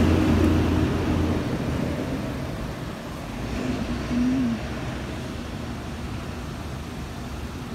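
Road traffic noise: a car's low engine rumble, loudest in the first second and then fading into a steady wash of road noise. A brief rising-and-falling tone sounds about four seconds in.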